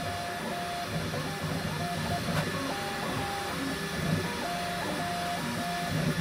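Bambu Lab X1 Carbon 3D printer printing at high speed: its stepper motors sing in short tones that jump in pitch with each quick move of the toolhead, over a steady hum.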